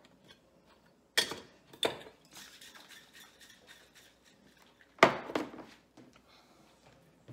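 Stainless steel cocktail shaker clanking and rattling. There are two sharp metal knocks just over a second in, a stretch of rattling, and a louder clunk about five seconds in.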